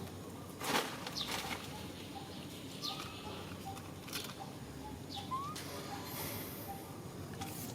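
Outdoor ambience with scattered short, high chirps and squeaks, a few of them sweeping quickly upward in pitch, and a brief noisy scuffle a little under a second in.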